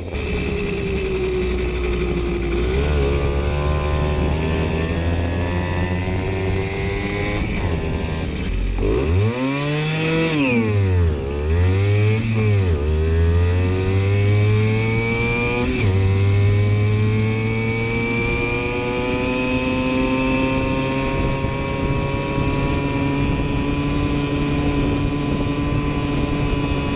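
Simson S51 moped's single-cylinder two-stroke engine running at a low steady speed, then revved up sharply and let fall back a few times about a third of the way in. After a sudden drop in pitch, the revs climb slowly and steadily for the rest of the time.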